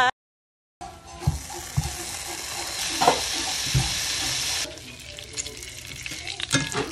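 Hot dogs frying in hot oil in a frying pan, a steady sizzle with a few soft knocks. The sizzle starts after a brief silence and drops to a quieter level a little past halfway, with scattered small clicks.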